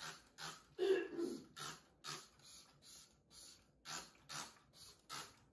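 Hand-pumped trigger spray bottle misting a hanbok on its hanger: a quick run of short spritzes, about two or three a second, with a louder, duller sound about a second in.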